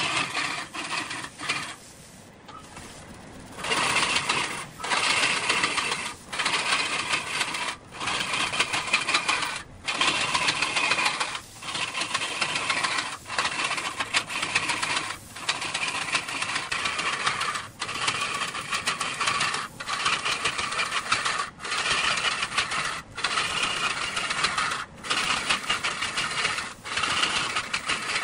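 Woodworking machinery cutting wood, a rasping, rattling noise that breaks off briefly at a steady rhythm about every one and a half to two seconds, after a quieter stretch near the start.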